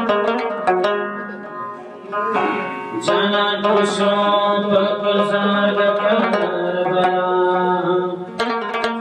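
Afghan rabab music: quick plucked notes that give way to a longer held melodic line in the middle, with the rapid plucking returning near the end.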